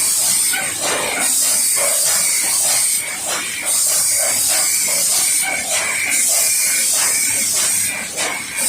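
Automatic soap packing machine running: a loud high hiss that drops out briefly about every two and a half seconds, over quick, regular clicking of the mechanism.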